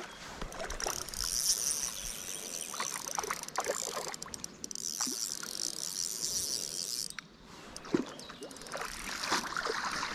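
Water splashing and sloshing in irregular strokes as a hooked char is played and landed. A steady high hiss runs through the first part and cuts off suddenly about seven seconds in.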